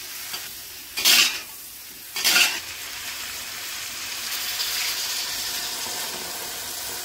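Vegetables sizzling in a hot wok while a spatula tosses them, with two loud scraping strokes about one and two seconds in. From about halfway, chicken broth is poured into the hot pan and the sound becomes a steadier, slightly louder hiss.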